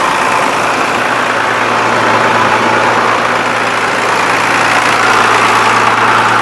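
Farm tractor engine running steadily with a constant low hum.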